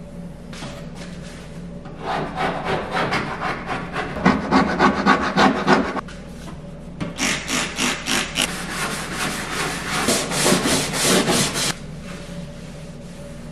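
A hand tool worked rapidly back and forth against a hard surface, about four strokes a second. It comes in two runs of a few seconds each, the first starting about two seconds in and the second stopping shortly before the end.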